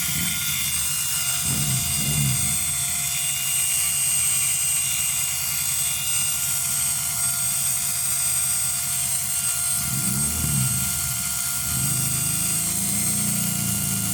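Central Pneumatic air compressor running with a loud, steady drone, its motor's cooling fan removed so that it overheats.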